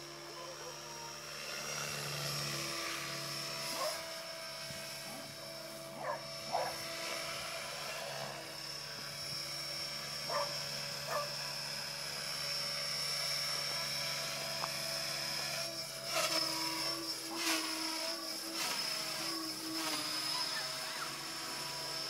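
Align T-Rex 550 electric RC helicopter in flight: a steady high motor-and-rotor whine whose pitch and loudness shift as it manoeuvres and passes overhead. It grows louder for a few seconds about three quarters of the way in.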